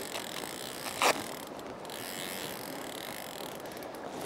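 Fly reel's click-and-pawl drag ratcheting as a hooked coho salmon is played on the line, over a steady rushing background. A single sharp knock sounds about a second in.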